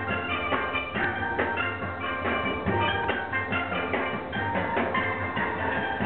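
Steel band playing: several steel pans struck in quick runs of ringing, pitched notes, with a steady low bass part underneath.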